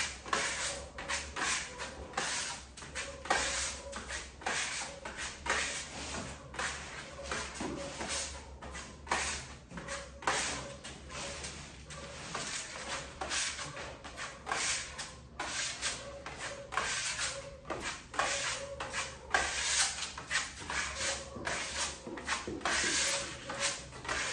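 Trowel spreading and scraping marble-effect plaster paste thin across a wall in quick repeated strokes, about two a second: the first coat being pressed flat and smooth.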